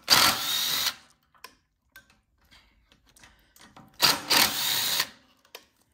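A power driver running in two bursts of about a second each, some four seconds apart, backing out the two bolts that hold the ignition coil on, with light clicks between.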